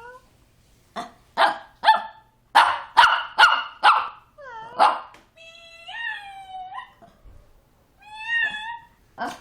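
A dog barking about seven times in quick succession, then giving three drawn-out howling calls that waver up and down in pitch, with one more short bark near the end. It is replying to a cat's meow.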